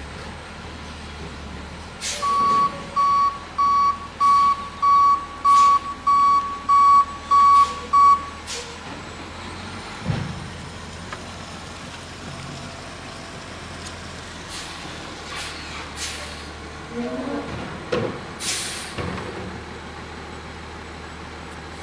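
Garbage truck idling with a steady diesel rumble while its backup alarm beeps about eleven times, a little under two beeps a second, then stops. Scattered clunks follow, and near the end comes a short, loud hiss of released air, typical of the truck's air brakes.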